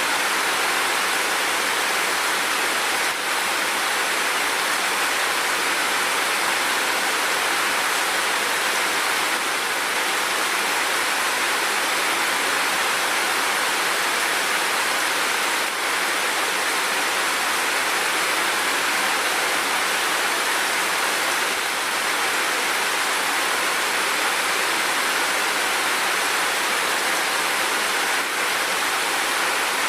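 Steady rain falling, a dense even hiss without separate drops or thunder.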